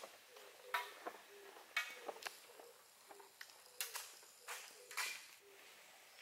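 Shoebill's bill clicking and snapping on a mouthful of pulled grass: a string of short, sharp, irregular clicks.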